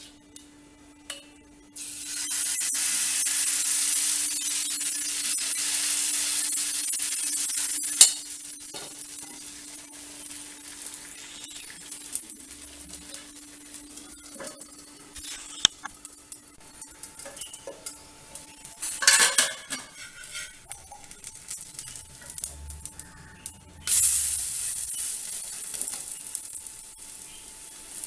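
Dosa batter sizzling on a hot iron griddle. A loud sizzle starts about two seconds in and settles to a low crackle. Later come a sharp click, a clatter of the metal lid, and a second loud burst of sizzling that fades, with a few clinks near the end.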